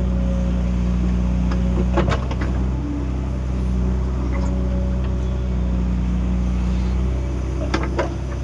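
Excavator's diesel engine running steadily under load, with a few sharp knocks about two seconds in and again near the end.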